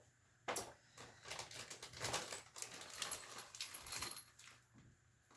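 Scattered clicks and clinks of small metal engine parts and tools being handled. A sharp click comes about half a second in, and a jingling rattle around three to four seconds in.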